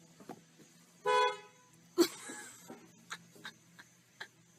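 A car horn honks once, briefly, about a second in, followed after about a second by a sharp knock, the loudest sound here, and then a few faint ticks.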